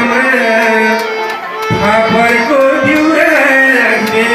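A man singing a Nepali folk song (teej / lok dohori) into a microphone, his melody swooping up and down, with a hand drum beating underneath.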